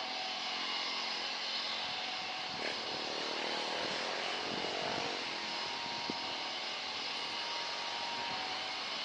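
Airliner jet engines running, a steady rush with faint whistling tones that holds level throughout.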